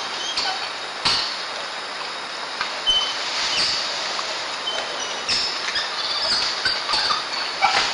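Steady high hiss of rainforest background with a few short high chirps, and scattered brief rustles and knocks from a two-toed sloth thrashing on its back in wet leaf litter.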